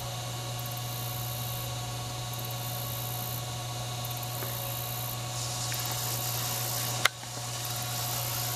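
Steady electrical hum and hiss from the recording itself, with one sharp click about seven seconds in.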